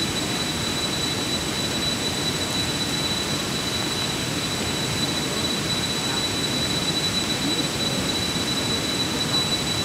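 Steady rushing noise with a faint, thin high whine held throughout.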